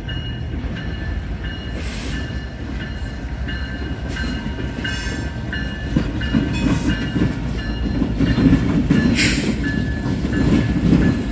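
EMD diesel locomotives rolling slowly past with their engines running in a steady low rumble, the locomotive bell ringing about twice a second. A few sharp clanks come from the train, and the rumble grows louder about halfway through as the units come alongside.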